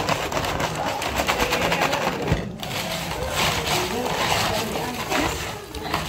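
Ice cubes rattling and clinking against each other and a plastic basin as it is shaken and stirred by hand: a fast run of clicks over the first couple of seconds, looser crunching after. Voices talk in the background.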